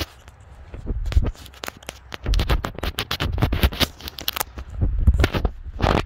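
Footsteps crunching through fresh snow on grass, each step a cluster of crackles over a low thud, close to the microphone. The steps come irregularly and are densest near the middle.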